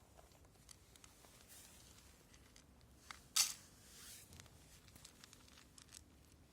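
Faint scattered clicks, then a short, sharp rustle a little over three seconds in, like something being torn or crinkled.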